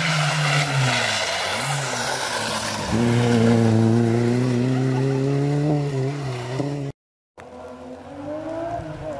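Rally car's engine on a special stage. Over the first three seconds the engine note falls as the car slows for the bend. Then it jumps louder and climbs steadily as the car accelerates away. The sound cuts off abruptly about seven seconds in, and another car's engine note rises near the end.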